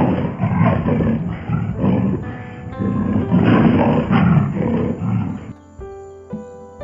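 Lion roaring in two long, rough swells over soft background piano music; the roaring stops about five and a half seconds in, leaving the piano.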